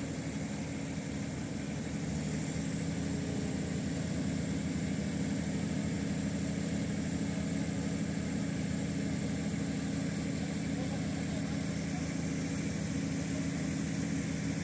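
Off-road SUV engine idling steadily, slightly louder from about two seconds in.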